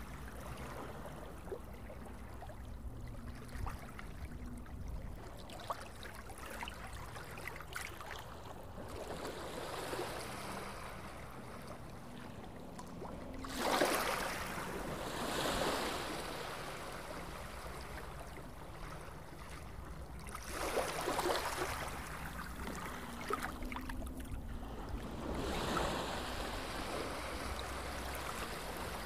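Sea water sloshing and lapping right at the surface, with louder waves washing past several times in the second half, over a steady low hum.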